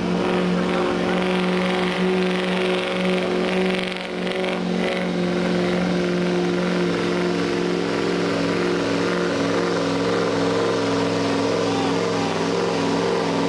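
Pickup truck engine held at high, steady revs under heavy load as the truck drags a weight sled down the pull track. The pitch stays nearly constant, with a brief dip in loudness about four seconds in.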